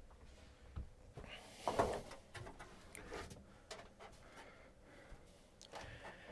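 Plastic back cover of an LCD TV being lifted off and handled: scattered light knocks and clicks, with one louder scrape about two seconds in.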